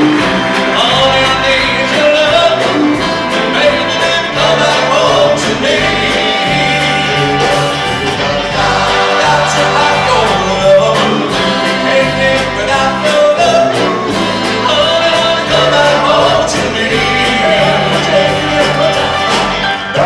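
Male doo-wop vocal group singing in close harmony, backed by a live band with electric guitar and drums.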